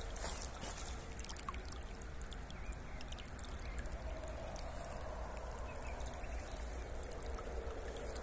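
Water running out of an open irrigation hose end and pouring onto wet soil, a steady trickling flow.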